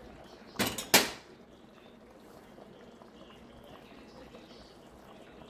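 Two sharp knocks close together about a second in, then faint steady background noise.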